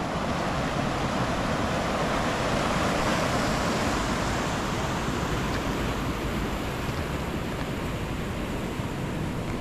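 River rapids rushing steadily over rocks beside a concrete floodway, with water flowing over the top of the crossing.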